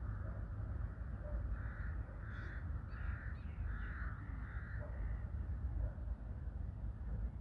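A crow cawing, five harsh caws in a row spaced a little under a second apart, over a steady low background rumble.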